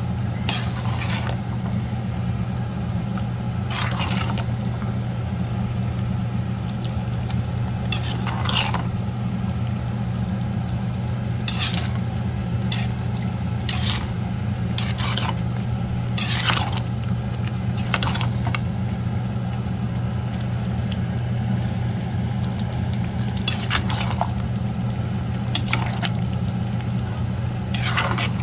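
A utensil stirring in a cooking pot, clinking against the pan about fifteen times at irregular intervals, over a steady low hum.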